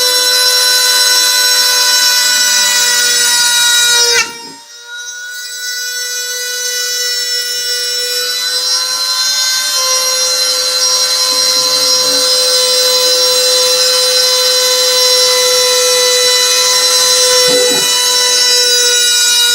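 CNC milling machine's spindle running with a steady high whine while milling. The sound drops away abruptly about four seconds in, then builds back up over the next few seconds.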